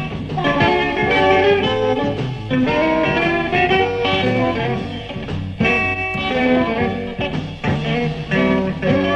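Live blues band playing an instrumental number, with electric guitar out front over the band.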